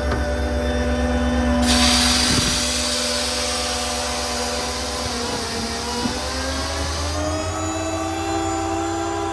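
Truck-mounted hydraulic air compressor running with the truck's 7.3 V8 gas engine driving it, a steady hum of several tones. About two seconds in, a loud hiss of air starts and runs for about five seconds, then stops as the hum steps up in pitch.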